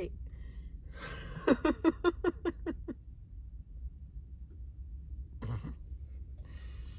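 A woman laughing in a quick run of short voiced 'ha' pulses, about four or five a second, then a short breathy sound about five and a half seconds in, over a steady low rumble.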